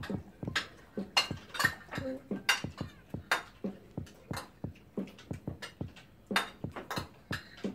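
Spoons and forks clicking and scraping on ceramic dinner plates: many short, irregular clicks, several a second.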